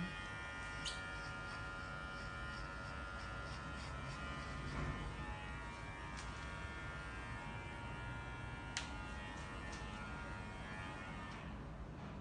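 Cordless electric hair clipper buzzing steadily as it shaves a head, with a couple of sharp clicks.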